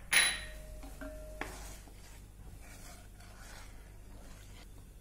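Wooden spatula stirring thin sweet corn soup in a nonstick pan: a short scrape against the pan just after the start and a couple of light knocks about a second in, then faint swishing of the liquid.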